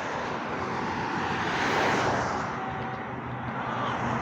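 A vehicle passing by on the road: a rushing noise that swells to a peak about two seconds in, then fades away.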